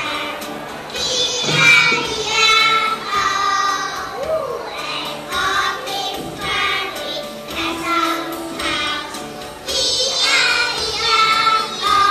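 A group of young children singing a song together into microphones, with music.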